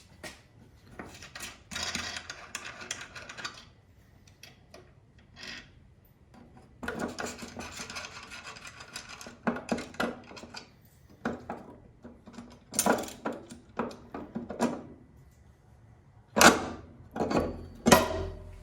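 Workshop handling noise: tools and metal parts being moved about, with two spells of scraping or rubbing and several sharp knocks and clanks, the loudest near the end.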